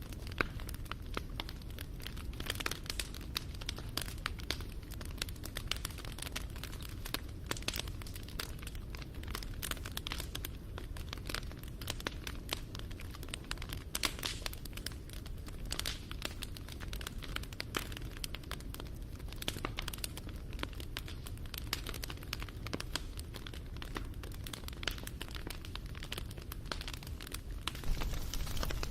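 Wood fire crackling, a dense run of irregular pops and snaps over a low rumble.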